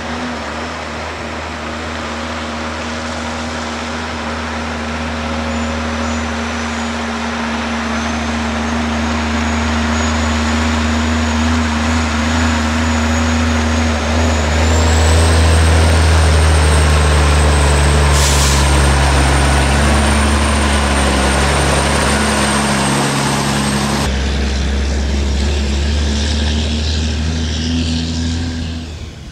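Loaded Western Star tri-drive logging truck's diesel engine pulling hard on a gravel forestry road, growing louder as it comes close and passes, with a high whine that rises about halfway through. A short hiss of air is heard about two-thirds of the way in.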